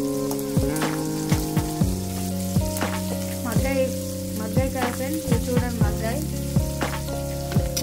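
Sliced onions and green chillies sizzling in oil in a kadai, with a steel spoon stirring and scraping the pan in frequent sharp clicks. Background music plays underneath.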